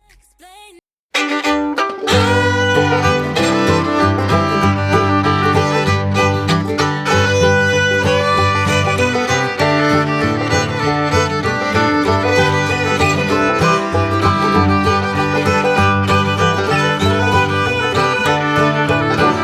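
Background music: a fiddle tune over plucked strings and a rhythmic bass line, starting about a second in.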